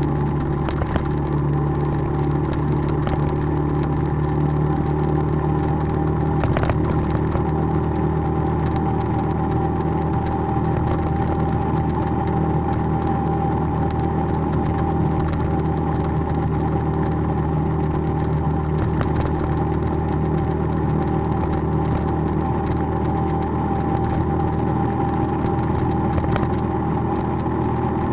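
Motorbike engine running at a steady cruising speed while riding, an even drone over road and wind noise, with one brief knock about six and a half seconds in.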